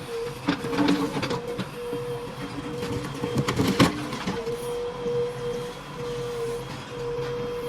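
JCB 3DX Plus backhoe loader running under work, its diesel engine and a steady whine going on, with sharp metallic knocks near the start and a loud clank a little under four seconds in.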